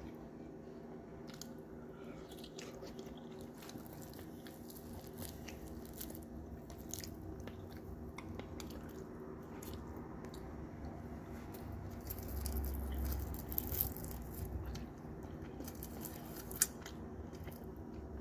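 Close-up mouth sounds of someone eating fried galunggong (round scad) and steamed sweet potato leaves: chewing and crunching, with many small wet clicks. The chewing grows louder for a couple of seconds about two-thirds of the way through.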